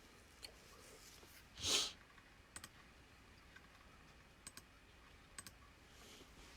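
Faint handling noise: a few light clicks and taps, with one short, louder rustle about two seconds in.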